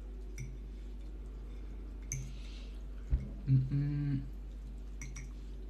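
Quiet eating sounds at a table over a steady low electrical hum: a faint click about two seconds in, a sharp knock just after three seconds, then a brief hummed voice for under a second.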